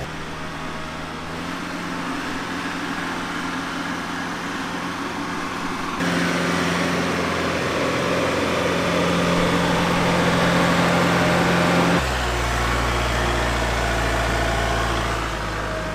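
Kubota L-series compact tractor's diesel engine running steadily, its tone and level changing abruptly about six and twelve seconds in.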